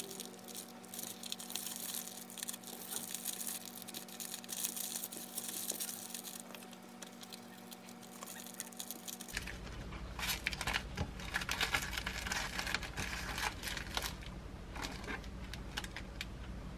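Thin plastic film of a triangle kimbap wrapper crinkling and rustling as it is folded around the rice ball and handled, in irregular bursts.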